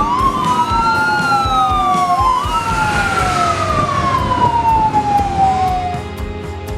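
Fire-engine siren wailing: two overlapping tones, each rising quickly and then falling slowly, over and over. The wail stops about six seconds in.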